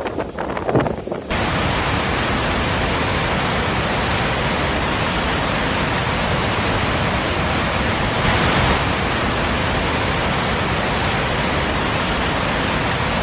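Steady, loud rushing of water, cutting in abruptly a little over a second in, with a brief louder swell about eight seconds in.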